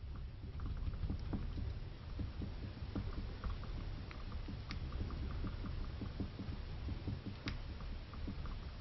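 A building creaking and rattling in an earthquake aftershock: a steady low rumble under many rapid small clicks and knocks, with two sharper ticks, about five seconds in and near the end.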